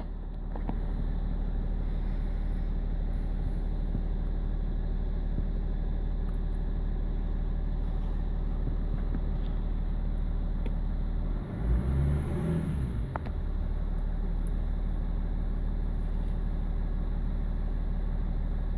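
BMW E46 330d's M57 straight-six diesel idling with a lumpy, rough idle, which the owner puts down to a failing number 6 injector. A brief louder swell comes about two-thirds of the way through.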